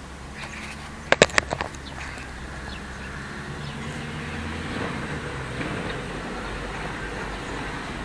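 Steady low rumble of distant road traffic, with faint bird chirps above it. A quick run of a few sharp clicks comes about a second in.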